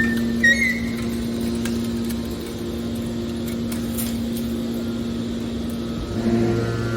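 Hydraulic power unit of a metal scrap compactor baler running with a steady mechanical hum, with a couple of short high squeaks near the start. About six seconds in, a deeper hum joins and the sound gets louder.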